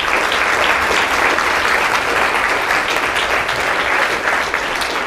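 Lecture-hall audience applauding steadily at the end of a talk, a dense patter of many hands clapping that begins to thin out near the end.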